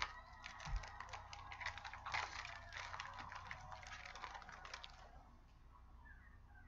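Foil wrapper of a trading card pack crinkling and crackling as it is torn open and handled, dense for about five seconds, then fainter.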